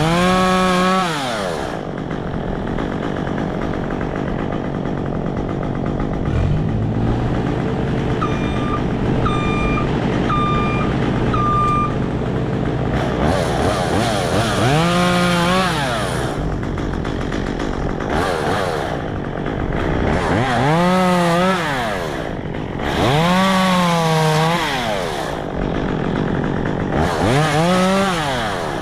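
Chainsaw revving up and bogging down in about five bursts as it cuts apple limbs, over the steady run of an engine. Four short, evenly spaced beeps sound about a third of the way in.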